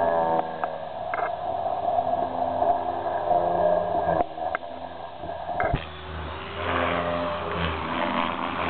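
Electric Protos 500 RC helicopter in flight: the motor and rotor whine, with its pitch sliding up and down as the head speed and blade loading shift during aerobatic manoeuvres. A few short clicks come through, and about six seconds in the sound turns to a lower, noisier rotor drone.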